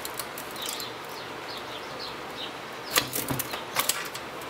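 A screwdriver prying a plastic piece off a vacuum cleaner motor's copper-wound stator held in a steel bench vise: a few sharp cracks and clicks about three seconds in, the first the loudest. Faint high chirps run in the background.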